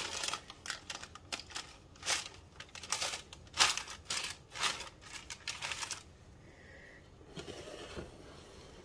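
Parchment paper rustling and crinkling in a quick series of short bursts as the dough on it is lifted and lowered into a Dutch oven. The rustling stops about six seconds in, leaving only faint handling noise.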